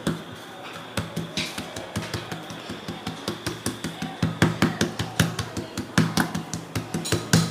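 Wooden rolling pin and rolling board knocking in quick, uneven succession, about four or five clacks a second, as roti dough is rolled out.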